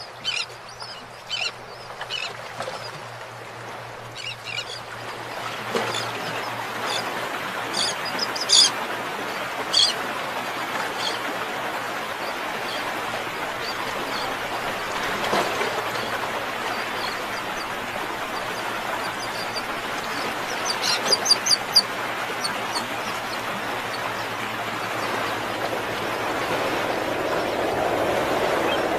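Birds calling over a steady rushing noise, with clusters of short, high calls about eight to ten seconds in and again about twenty-one seconds in.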